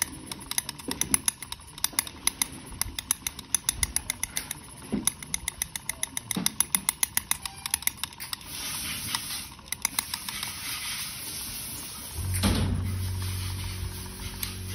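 Miniature brass forging steam hammer model running, its ram striking in rapid, even taps; a hiss comes in about eight seconds in. About twelve seconds in, a small electric motor is switched on and runs with a steady hum.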